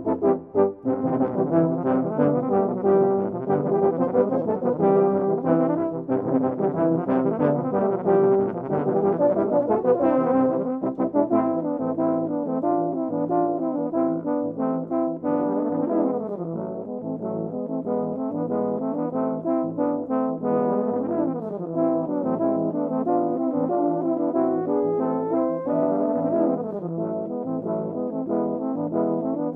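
A multitracked choir of Willson 2900TA euphoniums playing a fast, lively passage in harmony. About eleven seconds in the deepest part drops out and quick downward runs follow.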